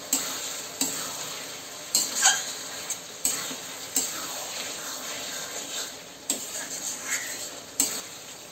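Mutton sizzling in spiced oil in a metal kadai while a metal spatula stirs and scrapes it, knocking against the pan about once a second over a steady frying hiss. The meat is at the kosha stage, being browned in its masala until the spices release their oil.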